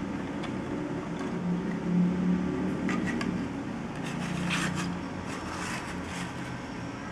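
Plastic LEGO Technic beams and pins clicking and rubbing as the model is handled and turned, in a few short clusters about three seconds in and again between four and six seconds, over a low steady hum.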